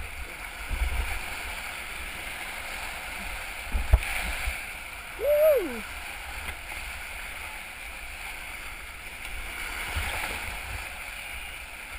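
Whitewater rapids rushing and churning around a kayak, close to the microphone, with low thumps from water hitting the boat and microphone. A short shout rises and falls in pitch about five seconds in.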